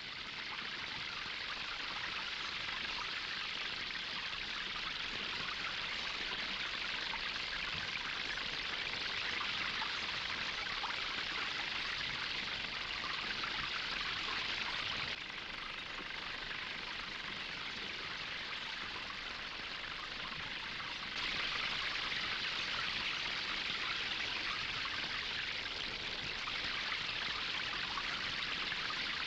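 Water spraying steadily from the showers of a mobile bath unit, an even hiss of falling water that dips slightly about halfway through and swells again a few seconds later.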